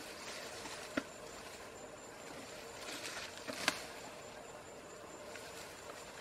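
Grass rustling as an Asian elephant feeds, with two sharp snaps of stems breaking, about a second in and again a little past the middle.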